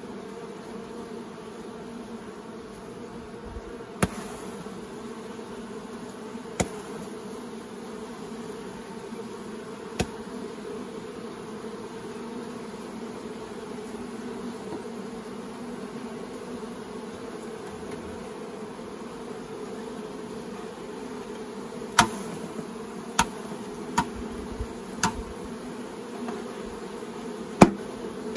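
Honey bees from an opened nuc buzzing in a steady, even hum. Several sharp knocks of wooden hive parts being handled cut through it, a few scattered and then a quick run of them near the end.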